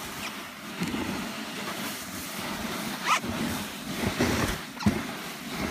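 Sledge runners sliding fast over packed snow on a downhill run, a steady rushing noise mixed with wind on the microphone, with a few bumps about three, four and five seconds in.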